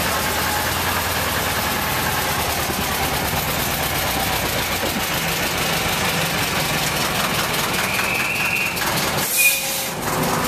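Small narrow-gauge diesel locomotive engine idling steadily. Near the end there is a brief high squeal and a short, loud rush of noise.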